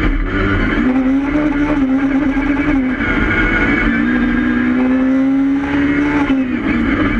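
Rallycross car's engine heard from inside the cockpit, running hard at high revs under a haze of tyre and road noise. The pitch holds high, breaks off briefly about three seconds in, then comes back lower and climbs steadily until it drops again near the end.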